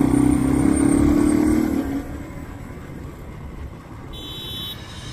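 Motorcycle engine running steadily under throttle, its note dropping away about two seconds in as the throttle eases off, leaving road and wind rumble. A short high electronic beep sounds near the end.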